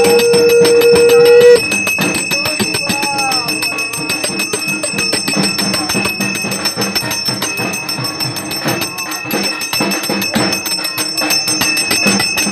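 A conch shell (shankha) blown in one steady held note for about a second and a half, the loudest sound here. Then bells ring on continuously, with many rapid clanging strikes.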